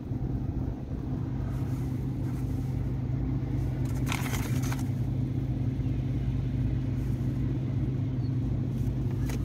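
Steady low machinery hum with a droning tone, and a brief paper rustle about four seconds in.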